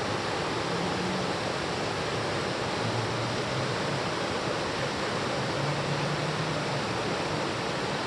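Mountain stream flowing over rocks and gravel, a steady even rush of water.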